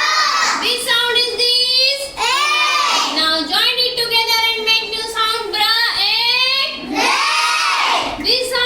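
A child's voice singing or chanting in a high pitch, holding long notes with short breaks between phrases.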